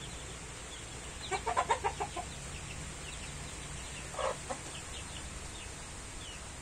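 Chickens clucking: a quick run of about eight clucks just over a second in, then a single call and a short cluck about four seconds in, over faint, high, repeated peeping of chicks.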